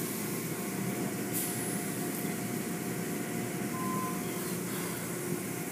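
Automatic tunnel car wash running: a steady rush of water spray and machinery around the car, with a faint steady whine and a short beep-like tone about four seconds in.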